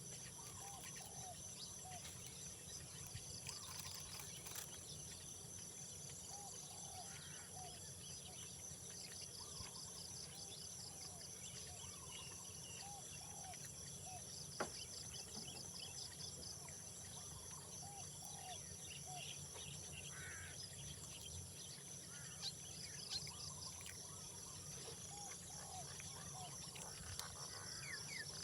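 A steady, high-pitched chorus of insects with a fast pulsing trill. Faint short chirping calls repeat through it, over a low steady hum, and there is one sharp click about halfway through.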